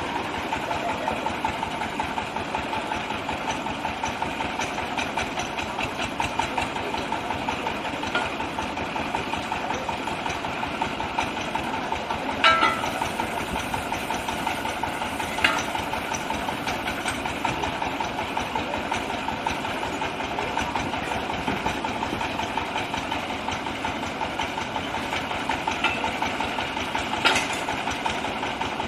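Compressed-air well-drilling rig drilling into rock: a steady machine running with a fast, even pulsing, broken by a few sharp clanks.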